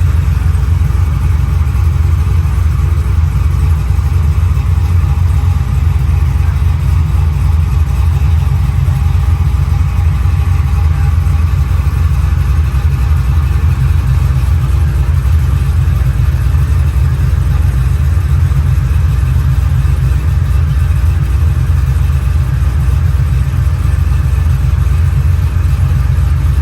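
A 1987 Chevy Caprice's 6.0 V8 engine running steadily with a deep, even low rumble.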